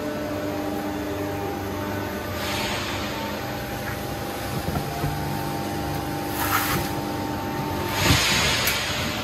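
QC11K-16X2500 hydraulic guillotine shear idling with a steady hum from its pump and motor. Short hissing bursts come about two and a half and six and a half seconds in. Near the end there is a thump and rustling as the cut steel strip is handled on cardboard.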